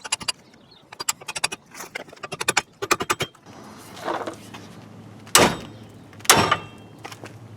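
A hammer striking a pickle fork (ball joint separator) to drive the lower ball joint out of the steering knuckle: a quick run of sharp metal strikes, then two heavy ringing blows about a second apart near the end.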